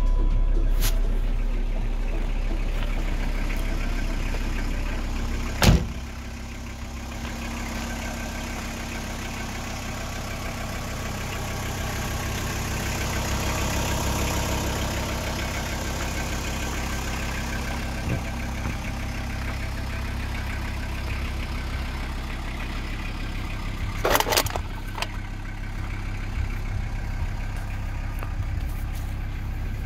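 VW Transporter T4's 2.4-litre five-cylinder diesel idling steadily just after starting. A single sharp knock about six seconds in is the van's door being shut, after which the engine is heard from outside and a little quieter. A brief noisy burst comes about 24 seconds in.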